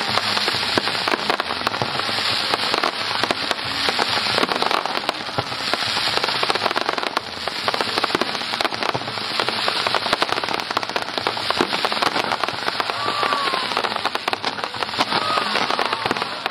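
Fireworks display: a continuous barrage of many small rapid cracks and pops from fireworks fired in quick succession, with no pause.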